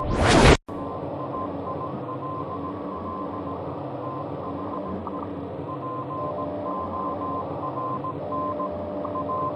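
Anxious, suspenseful ambience sound effect: a rising swell that cuts off abruptly about half a second in, then a dark steady drone with a faint broken high tone running through it.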